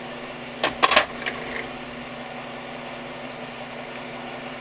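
Shop air compressor running with a steady, even hum. About a second in, a quick cluster of sharp clanks sounds over it.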